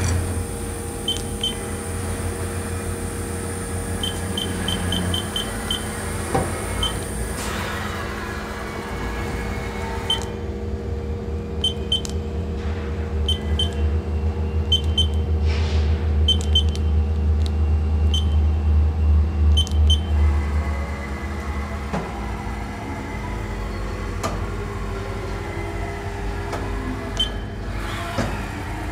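Haas VF5 vertical machining center running its axes: a steady motor hum that grows louder for several seconds midway, with servo whine gliding up and down near the end. Short high beeps sound many times in quick runs through the first two thirds.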